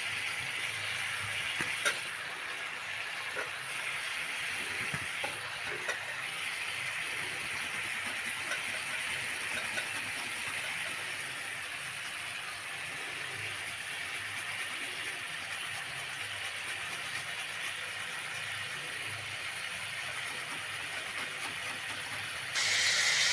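Cauliflower frying in oil in a pan: a steady sizzle with a few faint ticks, getting slightly louder near the end.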